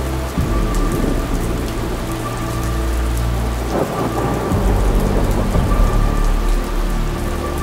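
Thunderstorm: steady rain with rolling thunder. A low rumble builds from about halfway through and is loudest around three-quarters of the way in.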